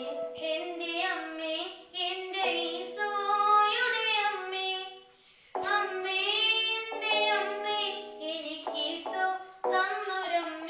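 A boy singing a Malayalam Marian devotional song over a steady instrumental backing track, with a short break in the singing about halfway.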